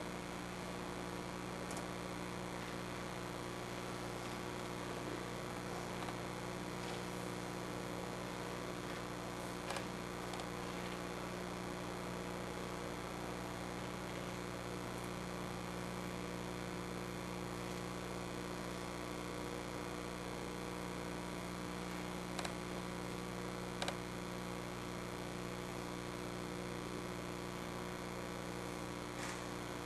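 Steady electrical hum over an even background hiss, with a few faint clicks.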